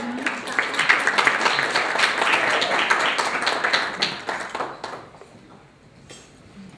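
A room of guests applauding, with dense clapping that fades out about five seconds in.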